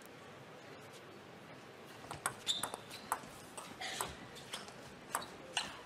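Table tennis rally: the ball clicks sharply off the rackets and the table in an irregular run, starting about two seconds in.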